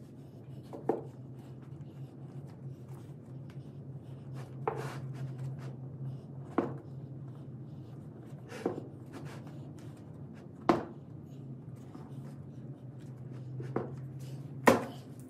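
A steady low hum with scattered sharp knocks and clicks, about seven of them at irregular intervals, the loudest near the end.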